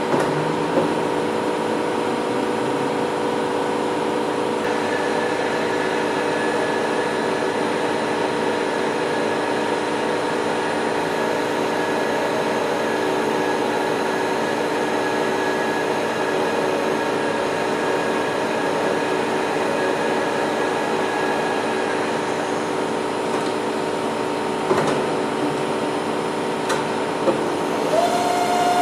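Novar CNC bed milling machine running with a steady mechanical hum and whine made of several constant tones. A higher whine comes in a few seconds in and drops away later, and a few clicks sound near the end.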